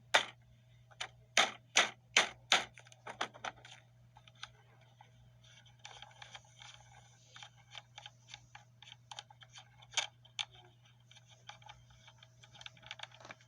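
A 3/8-inch ratchet with a 17 mm socket clicking as it backs off a steering wheel's centre nut. Loud, separate clicks come in the first few seconds, then quicker, fainter clicking follows.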